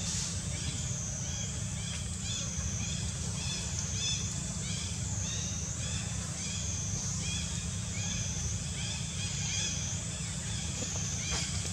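Tropical forest ambience: a steady high insect drone that swells and fades every second or two, with a run of short repeated chirps over it and a low rumble underneath.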